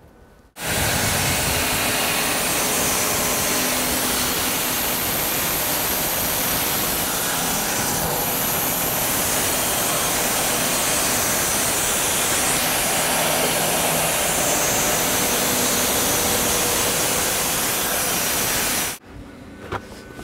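Electric-motor-driven homemade band sawmill running steadily, its blade cutting through a spruce log. The loud, even noise starts suddenly about half a second in and stops suddenly near the end.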